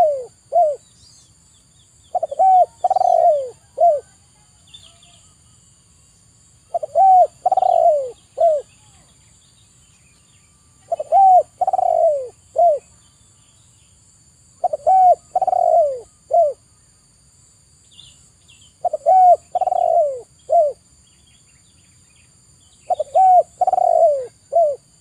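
Spotted dove cooing its song: a phrase of short coos around one longer, falling coo, repeated six times at about four-second intervals.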